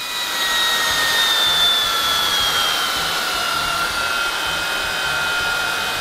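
V-Scan 300 cordless vacuum cleaner running, its motor whine sliding slowly down in pitch as auto mode lowers the suction once the debris has been picked up.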